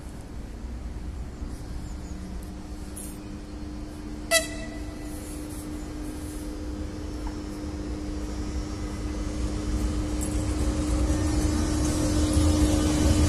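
Electric locomotive hauling a passenger train, approaching and passing, with a steady hum and rolling noise growing louder throughout. A very short horn toot sounds about four seconds in.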